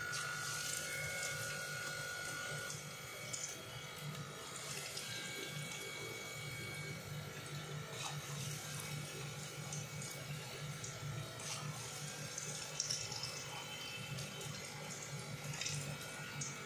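Breadcrumb-coated vegetable seekh kababs sizzling steadily as they deep-fry in hot oil in a pan.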